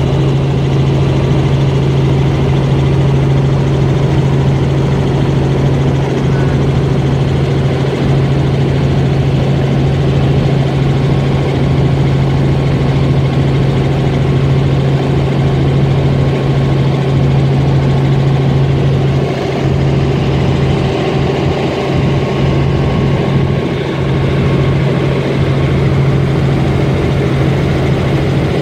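Helicopter in cruise flight heard from inside the cabin: a loud, steady drone of rotor and engine with a strong low hum.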